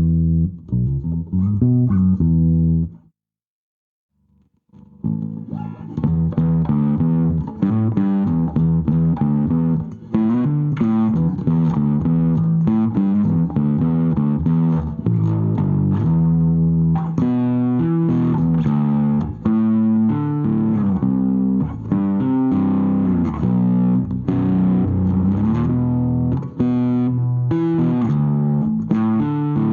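Bass guitar played through a Jeds Peds Wasteman overdrive, a Tube Screamer–style pedal with a clean blend. The playing stops about three seconds in, is silent for a second and a half, then starts again with a brighter tone.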